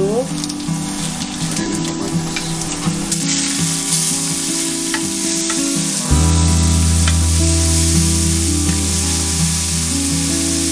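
Garlic and tomato slices sizzling in hot oil in a nonstick frying pan while being stirred with a spatula. The sizzle grows louder about three to four seconds in.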